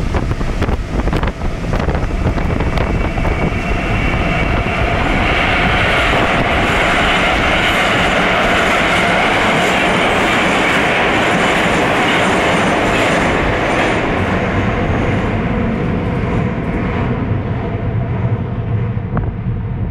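Moscow Metro train running through a tunnel, heard loud and close from the outside of a car: wheels clicking over rail joints, then a rushing hiss that swells about a quarter of the way in and eases off near the end.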